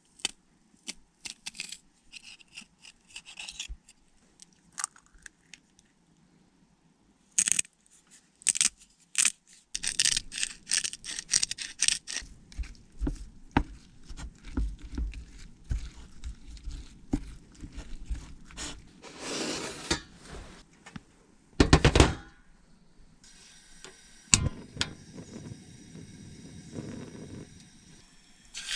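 Clicks, knocks and scrapes of things being handled and set down in a small room, with one louder knock near the middle and a steady hiss over the last few seconds.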